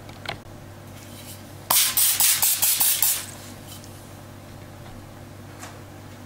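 Aerosol cooking spray hissing onto a foil-lined baking pan in one burst of about a second and a half, a little under two seconds in.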